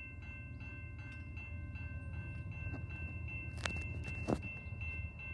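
Railway level-crossing warning bell ringing steadily, about two and a half strokes a second, over a low rumble. Two sharp clanks come about three and a half and four seconds in, as the crossing gate arms start down.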